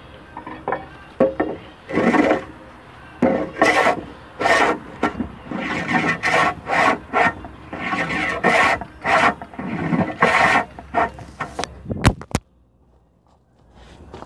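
Hand plane cutting along a wooden boat keel in a series of repeated strokes, some longer and some short and quick, shaping the timber. Near the end two sharp clicks, then the planing stops.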